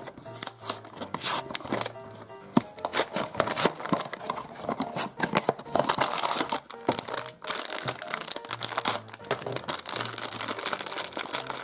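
Cardboard blind box being opened and a black foil bag crinkling and tearing in the hands: a dense run of sharp crackles over quiet background music.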